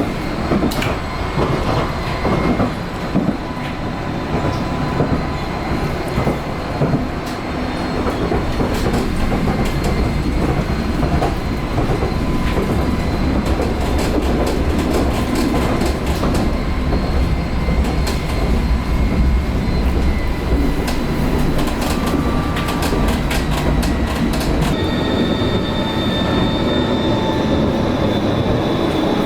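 Vossloh Kiepe Tramlink light-rail tram running along the track: a steady rumble of wheels on rail that grows louder about a quarter of the way in, with faint steady whining tones. Runs of sharp clicks from the wheels over the track come around the middle.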